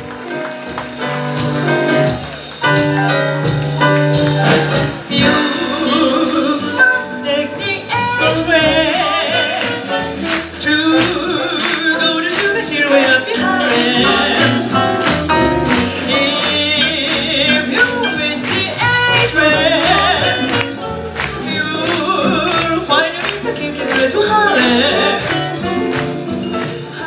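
Live swing jazz from a small combo of piano, saxophone, double bass and drums, with a woman singing over the band. It opens on held chords, and the drums come in about five seconds in.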